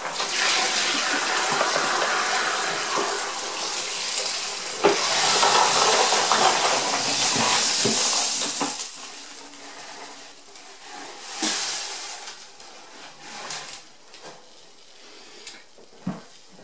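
Water, stainless steel tumbling pins and brass cartridge cases pouring out of a plastic tumbling barrel into a media separator's basket: a steady rush and splash with metal rattle for about nine seconds, then the pour stops. After that it is much quieter, with a few short plastic knocks as the separator is handled.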